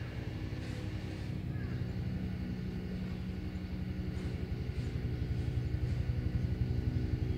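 A motor engine running steadily, a low hum that grows a little louder near the end.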